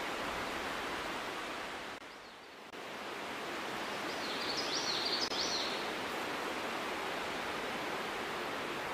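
Steady, even outdoor hiss, dipping briefly about two seconds in, with a short run of high chirps from about four to five and a half seconds in.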